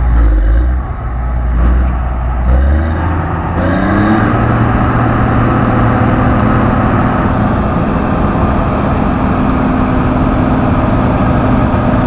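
John Deere 9880i STS combine harvester running while harvesting corn with a Geringhoff Rota-Disc header. A deep rumble in the first seconds gives way to an engine note that rises about three to four seconds in, then holds as a steady hum with a whine above it.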